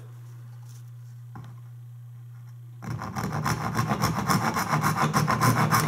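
A freshly sharpened and set Spear and Jackson dovetail saw cutting into soft pine in quick, even rasping strokes, starting about three seconds in. Before that there is only a low steady hum.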